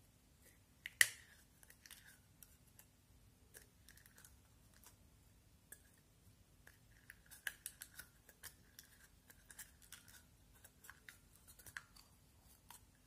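Clear green slime being pulled by hand out of a small plastic jar: faint sticky clicks and crackles with short squeaky smears, one sharper click about a second in.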